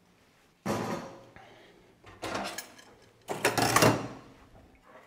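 A plastic cutting board and kitchen things being moved and set down on a stainless-steel counter: three rough clattering handling noises, the last the loudest and longest.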